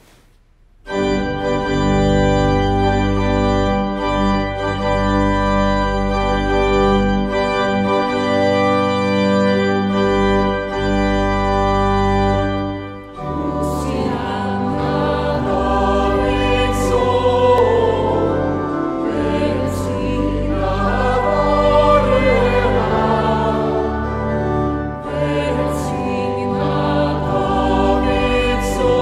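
Pipe organ playing held chords as an introduction, then a small mixed choir begins singing with the organ about thirteen seconds in.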